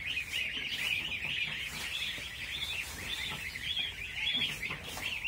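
A crowd of ducklings peeping continuously, many high, wavering calls overlapping into one steady chorus.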